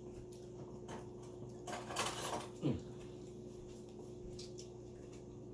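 Quiet mouth sounds of a person eating fish by hand: soft chewing and lip smacks, with a short breathy rush about two seconds in and a sharp smack just after, over a faint steady hum.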